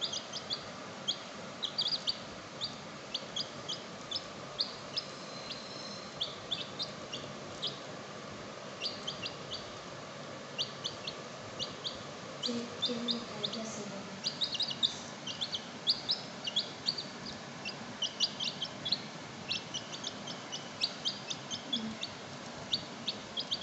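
Animal squeaks and chirps: short, high-pitched calls several a second, with a few lower clucking calls about halfway through and near the end.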